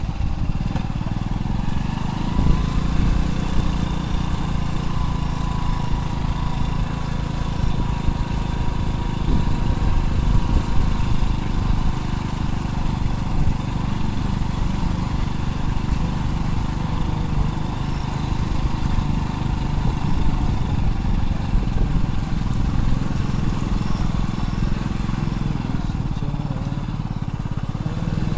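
Motorcycle running steadily while being ridden, a dense, unbroken low rumble.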